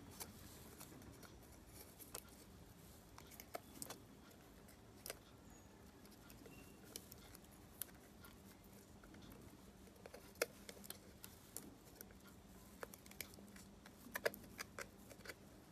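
Faint scattered clicks and crackles of fingertips pressing clear tape and foil paper down onto an LED bulb's aluminium circuit board, with a small flurry of clicks near the end.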